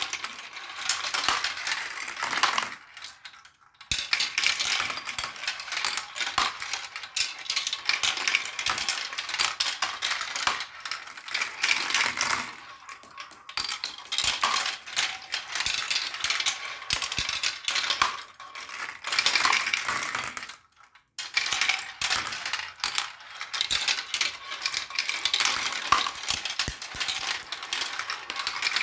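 Marbles rolling and clattering down a marble run track, a dense stream of small clicks and rattles. It pauses briefly about three seconds in and again about twenty-one seconds in.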